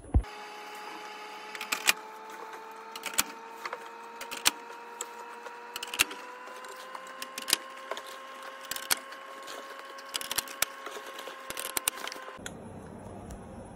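Clicks and knocks of a shirt clamped in a plastic embroidery hoop being handled and fitted onto a Tajima multi-head embroidery machine, at uneven intervals. Under them runs a steady hum whose pitch rises slightly.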